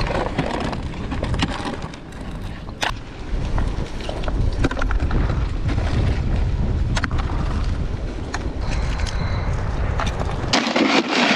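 Wind buffeting the microphone on an open rocky shoreline, a steady low rumble, with a few sharp clicks of stones being shifted by hand. Near the end the rumble stops abruptly and gives way to a lighter, even hiss.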